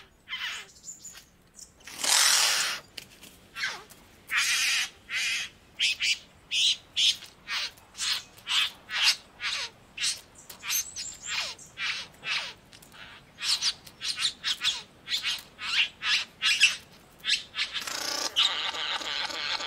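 Satin bowerbirds giving harsh grating calls: one long rasping call about two seconds in, then a run of short harsh calls, one or two a second. Near the end a male's buzzing, churring courtship song starts up.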